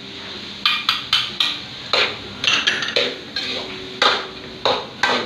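Spatula scraping and knocking against a wok while vegetables are stir-fried, about a dozen irregular clatters, roughly two a second.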